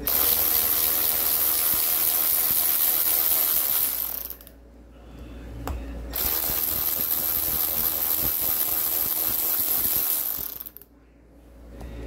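A cordless power tool with a socket spins out the bolts of an e-scooter hub motor's side cover. It runs in two steady bursts of about four seconds each, with a short pause between them.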